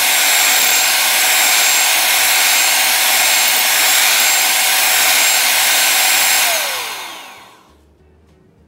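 Electric hand mixer whipping egg whites at high speed: a loud, steady whirr that starts suddenly. About six and a half seconds in it is switched off and its pitch falls as the motor winds down and fades away.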